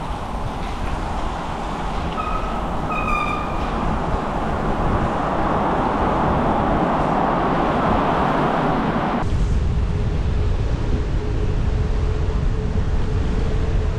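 Wind rushing over the microphone and tyre noise from a bicycle rolling fast downhill through a road tunnel, with a rumble of traffic echoing in the tunnel. Two short high squeaks come about two and three seconds in, and about nine seconds in the hiss cuts off suddenly, leaving a low rumble and a faint steady hum.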